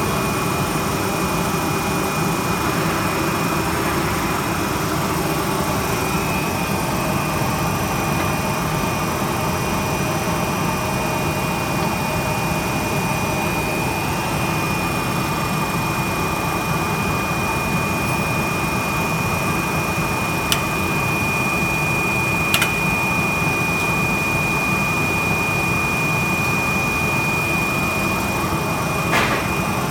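Steady hum and hiss of running factory machinery with a steady high-pitched whine, and three short sharp clicks in the second half.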